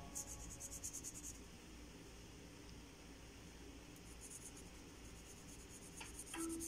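Felt-tip marker scratching on paper in quick back-and-forth colouring strokes, in two spells: about a second at the start and again from about four seconds in. Plucked notes of background music begin near the end.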